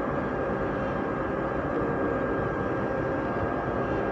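Steady drone of a passenger ship's engines and machinery heard from its foredeck, with a faint high whine held over it.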